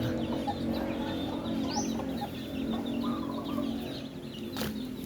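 A flock of chickens clucking all at once, a dense overlapping chorus with many short high peeps and chirps above it. A brief click comes about four and a half seconds in.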